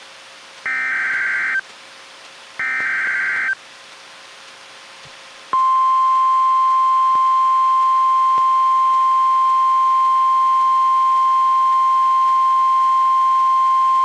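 NOAA Weather Radio alert signals from a Reecom R-1630 weather radio: two one-second bursts of screechy SAME digital header data, then, about two seconds later, the steady single-pitch 1050 Hz warning alarm tone. Together they signal the start of a broadcast flash flood warning.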